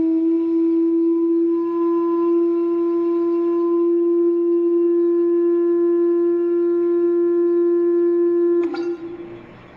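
Steady, unwavering tone of a sand-covered Chladni plate driven at one of its resonant frequencies, the single pitch held with faint overtones while the sand settles into its standing-wave pattern. Near the end the tone cuts off with a click.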